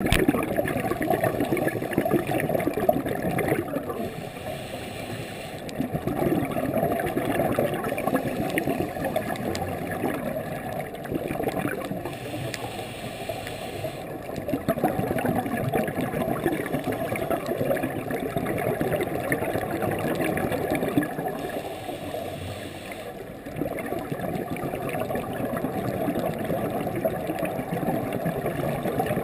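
Scuba regulator breathing heard underwater through a GoPro Hero2's dive housing: long stretches of bubbling exhalation, broken three times by a shorter, quieter hiss of inhalation.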